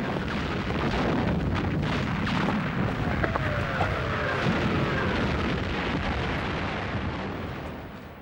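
Battlefield sound effects of a continuous artillery barrage: a dense rumble of gunfire and explosions, with a few faint falling whistles midway, easing off near the end.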